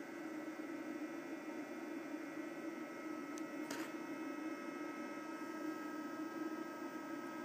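eFuel PSU30ADE power supply running: a steady hiss and hum with several steady high whining tones, and a sharp click about halfway through.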